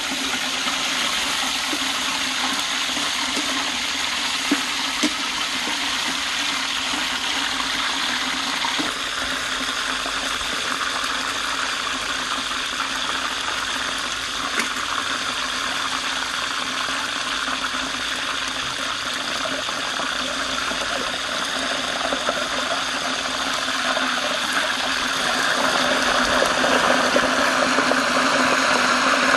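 Whole chicken deep-frying in a large pot of hot oil: a steady sizzle that grows louder near the end.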